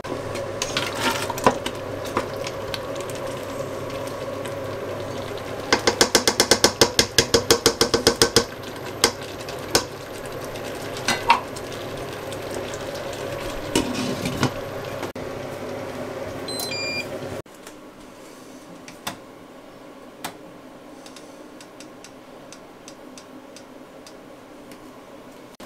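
A metal utensil stirring and clinking in a cooking pot, with a fast run of even strokes, about a dozen in two seconds, some six seconds in. Over a steady hum from the cooker, a few short electronic beeps sound near the seventeen-second mark, and the hum cuts off suddenly right after.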